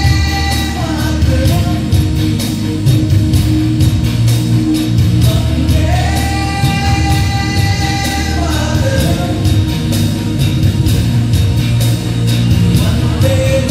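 Recorded song played over a hall's loudspeakers: a voice holds long notes that slide up and down, over a steady beat.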